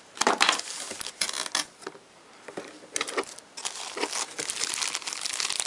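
Clear plastic bag crinkling as a Milwaukee M18 lithium battery sealed inside it is picked up and handled, in irregular crackles.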